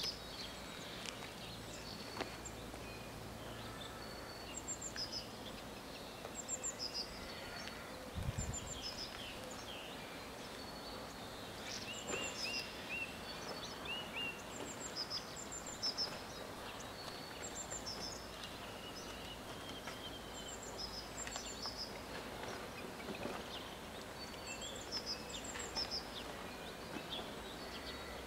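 Songbirds singing, with short high chirps and trills coming every second or two over faint steady outdoor background noise. A brief low thump about eight seconds in.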